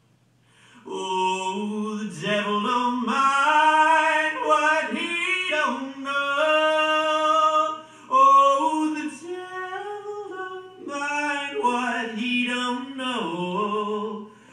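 Music: a solo voice singing long held notes with little or no accompaniment, coming in about a second in.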